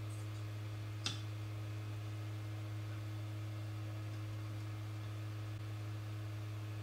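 Low steady hum at the soldering bench, with a single sharp click about a second in.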